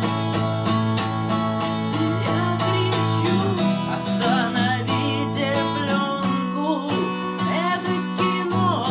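Acoustic guitar strummed in a steady, even rhythm, with a sung melody over it in parts.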